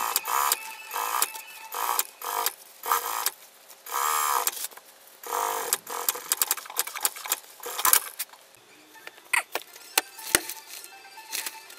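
Brother industrial single-needle sewing machine stitching in short bursts, its motor whirring up and stopping between runs. In the last few seconds there are sharp scattered clicks and taps of handling.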